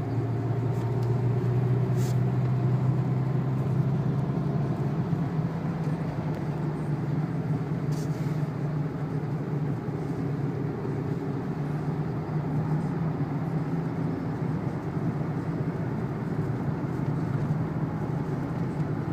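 Renault 2.0-litre turbo-diesel engine droning steadily at a gentle, moderate pace, heard from inside the car's cabin, with tyre and road noise from the wet track underneath.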